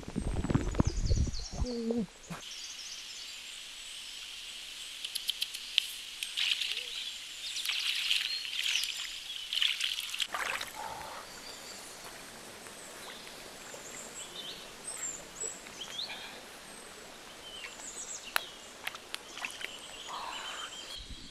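Stream water sloshing and splashing as hands work in it, a loud muffled churning in the first two seconds and a burst of splashing from about six to ten seconds in. Birds chirp throughout.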